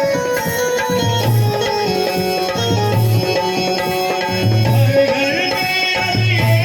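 Instrumental passage of a recorded Hindi song: a melody line over a steady hand-drum rhythm, with no singing.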